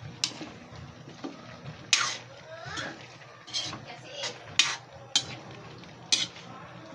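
A ladle stirring pork and potatoes in a wok, knocking and scraping against the pan in about seven sharp clatters at irregular intervals.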